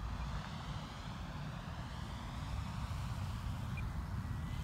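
Low wind rumble on the microphone. Over it comes the faint whine of a distant electric RC plane's brushless motor and propeller, drifting slowly in pitch as it flies past.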